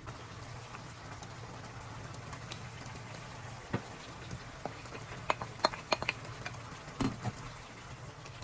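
Chayote, shrimp and ground meat sautéing in a pan with a steady sizzling hiss. In the middle of it comes a quick run of sharp clinks, as of a cooking utensil against the pan.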